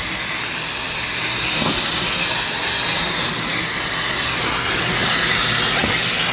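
Water from a garden hose watering wand spraying into an air conditioner condenser coil, rinsing out the coil cleaner: a steady hiss of spray.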